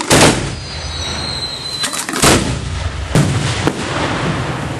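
Aerial firework shells fired from mortar tubes at close range: four sharp booms, the last two in quick succession, over a steady low rumble of shells going off.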